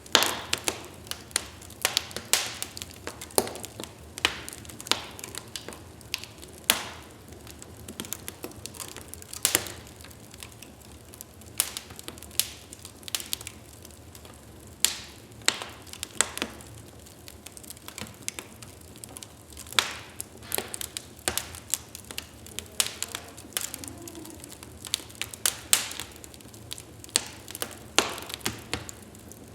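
Wood fire burning in a fireplace: irregular sharp crackles and pops of burning logs over a low steady hiss of the flames.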